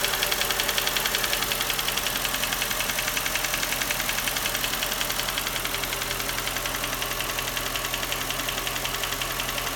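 Mercedes-Benz M113 5.0-litre V8 idling with a rapid, regular light tapping. The owner suspects lifter noise, and has ruled out the belt-driven accessories.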